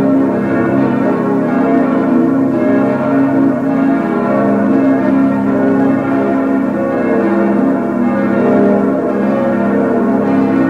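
Full peal of six bronze church bells cast by Schilling in 1958, tuned A♭, B♭, D♭, F, A♭, B♭, all ringing together in a continuous, overlapping clangour of tones.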